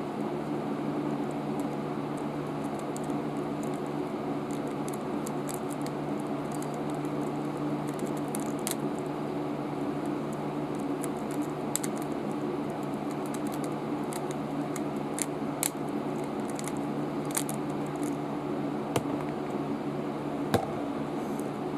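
Small plastic clicks and scratches scattered irregularly over a steady low hum, from a Rubik's cube being handled and turned. A few sharper clicks come near the end.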